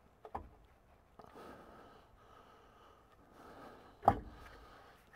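Hand work on a diff centre in its axle housing while a nut is started on its thread: faint fiddling and breathing, a light knock near the start and a loud knock with a low thud about four seconds in.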